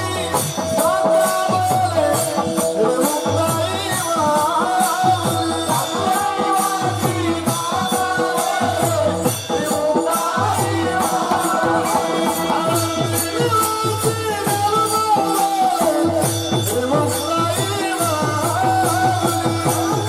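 A man singing a devotional kirtan melody, accompanied by mridang drum strokes and held steady notes underneath, with a steady beat of sharp, high percussion strokes over it.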